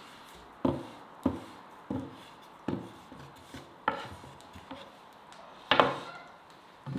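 Wooden rolling pin knocking and rolling on a wooden pastry board as dough is rolled out thin. Sharp wooden knocks come about every half second at first, then further apart, and the loudest comes a little before six seconds in.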